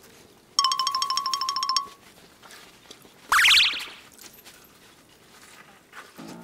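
Two added sound effects: a bright chime trilling rapidly for about a second, then, about three seconds in, a short boing-like swoop that rises sharply in pitch.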